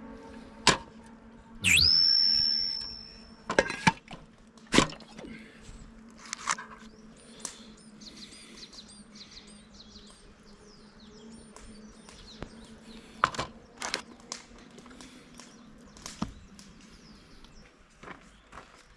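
Small birds chirping faintly, with several sharp knocks and clicks of gear being handled close by. About two seconds in, a loud high whistle-like tone drops steeply and holds steady for nearly two seconds.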